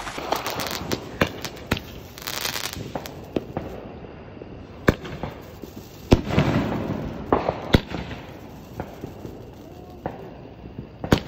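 Fireworks going off overhead: sharp bangs at irregular intervals with crackling between them, and a hissing burst about two seconds in.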